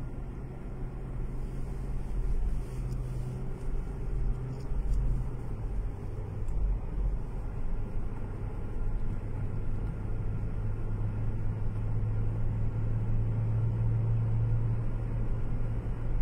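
Car engine and road noise heard from inside the cabin while driving: a steady low hum over a rumble, the hum stepping down slightly in pitch about five seconds in.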